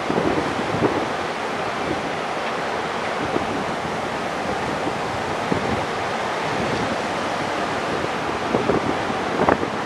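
Wind blowing over the microphone as a steady rushing noise, with a few brief buffets near the start and again near the end.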